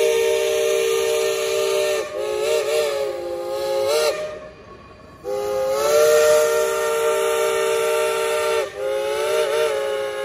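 Steam locomotive chime whistles sounding a chord in four long blasts in a row, with a gap of about a second after the second blast.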